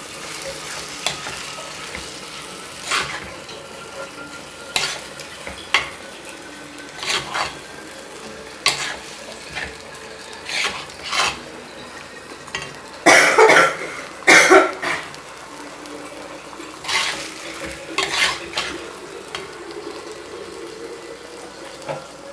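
Spatula stirring chicken pieces through onion-tomato masala in a frying pan, with steady sizzling and irregular scrapes and knocks against the pan every second or two. The loudest strokes come a little past halfway.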